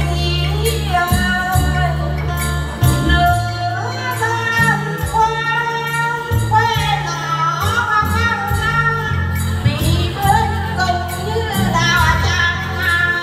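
Women singing a Vietnamese folk song through microphones, with plucked long-necked lutes (đàn tính), a sustained deep bass and bells jingling on a steady beat.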